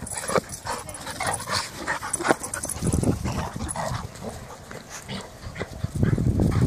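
Two dogs, a Carolina dog and a Rottweiler mix, making short, irregular dog sounds throughout as they tussle over a ball in play.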